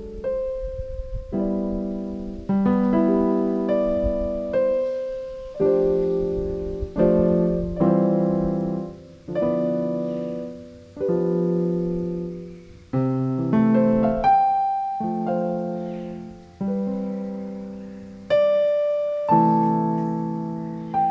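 Slow, contemplative solo piano music: chords struck every second or so, each left to ring and fade before the next.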